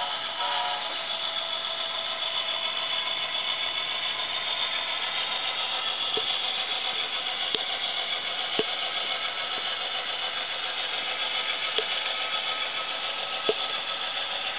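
The DCC sound decoder in an HO-scale Intermountain AC44 diesel locomotive plays a steady diesel engine sound as the model runs. About five short sharp clicks come through in the second half.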